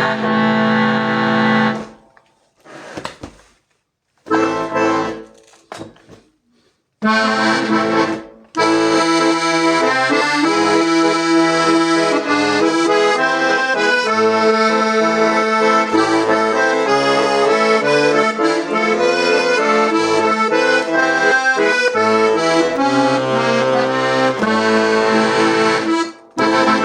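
Hohner Morino Artiste IIID accordion being played: a held chord that stops about two seconds in, a few short separate chords with silent gaps, then from about eight seconds in a continuous tune over bass and chords.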